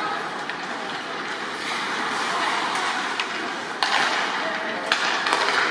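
Ice hockey play in an indoor rink: a steady hiss of skate blades on the ice with a few sharp clacks of sticks and puck, the loudest about four and five seconds in.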